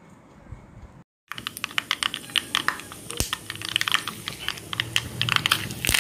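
Mustard seeds crackling and popping in hot oil in a small pan, a dense run of irregular sharp pops that grows busier toward the end.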